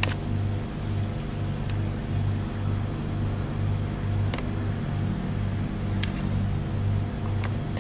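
Background music with a low bass note pulsing about twice a second over sustained tones, with a few faint clicks.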